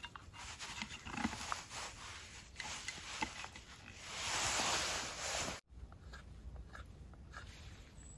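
Light metallic clicks and taps as a lid is fitted onto a metal cup and its small folding wire handle is worked, with a swell of rushing noise about four seconds in. After an abrupt change, a few faint knife cuts on wood.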